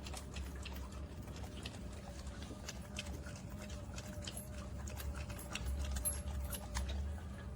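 Stainless steel dog water fountain running: water trickling and dripping with irregular small clicks and splashes over a steady low hum.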